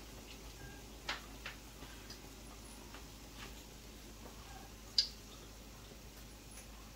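Bara fritters deep-frying in a pot of hot oil: scattered pops and crackles of spattering oil over a faint hiss, the sharpest pop about five seconds in.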